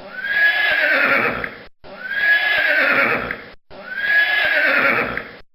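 Horse whinnying, the same call played three times in a row. Each call lasts about a second and a half and opens on a high held note that drops into a quavering neigh.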